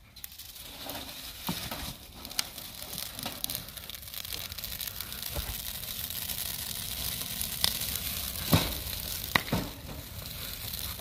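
Green leafy branches burning in a metal chiminea fire, crackling and hissing steadily with several sharp pops, the loudest about two-thirds of the way in.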